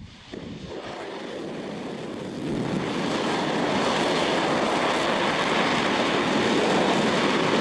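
Hydrogen-oxygen rocket engine firing on a test stand: a dense, steady rushing noise that builds over the first two to three seconds, then holds loud.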